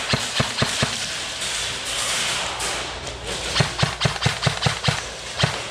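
Airsoft guns firing in rapid single shots, about four or five a second: a quick string of about five near the start, then another of about seven from about three and a half seconds in. Steady background noise runs under the shots.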